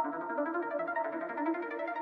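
Background instrumental music: keyboard or piano notes over a steady flow of pitched tones.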